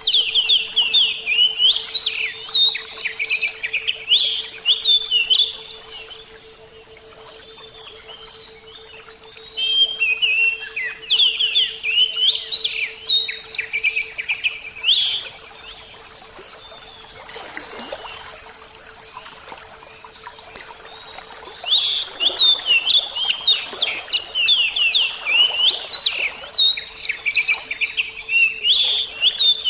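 A songbird singing in long bouts of rapid, high chirps. There are three bouts with quieter pauses between them.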